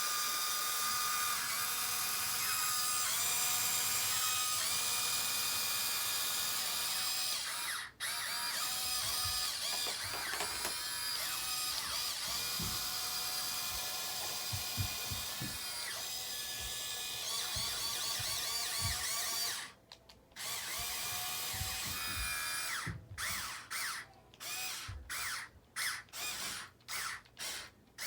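Small electric motors and gearboxes of radio-controlled model construction machinery whining as they run, changing pitch as the speed changes, with a few low knocks midway. Near the end the motors start and stop in short repeated bursts.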